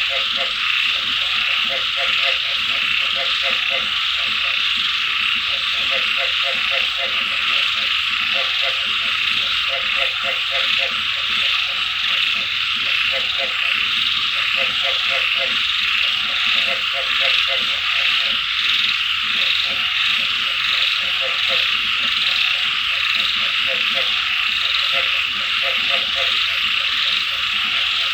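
A chorus of frogs calling in short trains of rapid croaks, repeating every second or two. Beneath them runs a steady high hiss of rain and insects.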